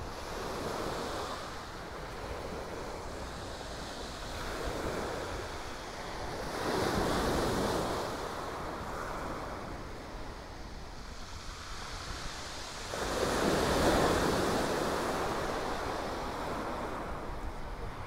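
Small waves of the English Channel breaking on a shingle beach. The surf swells and fades every few seconds and is loudest about seven and fourteen seconds in.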